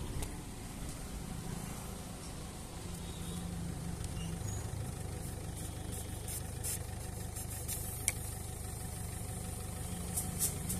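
A vehicle engine running steadily at idle. Light, sharp clicks come in the second half and more often near the end, as a puncture-repair tool is worked into the tubeless tyre.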